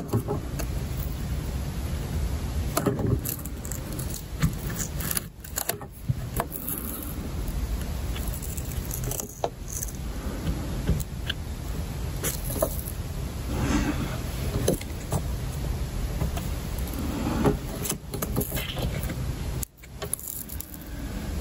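Blue painter's tape being slowly peeled off wood, giving scattered soft crackles and clicks over a steady low rumble.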